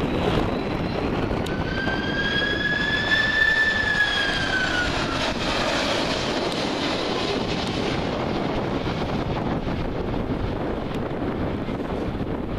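Qatar Airways Airbus A330 jet airliner on final approach passing low overhead: a steady rush of engine noise with a high whine that rises slightly, then glides down in pitch a few seconds in as the aircraft goes by, then fades into a duller rush as it lands.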